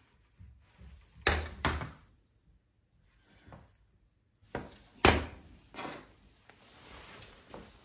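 Metal-on-metal knocks and clunks as a steel scissor jack is handled and set down on a metal workbench: two sharp knocks just over a second in, the loudest knock about five seconds in, and a few quieter taps between.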